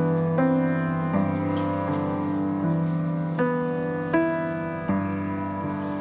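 Background piano music: slow, sustained chords, a new one struck about every second.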